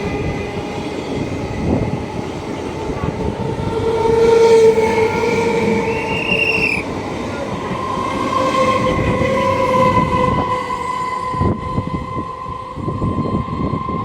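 Indian Railways train horn sounding almost without a break as a train passes, its tones shifting in pitch a few times. Wheels clatter over the rail joints, more strongly near the end.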